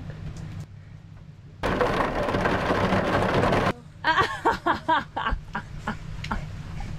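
A loud rushing burst of noise lasting about two seconds that starts and stops abruptly, followed by a woman's loud laughter.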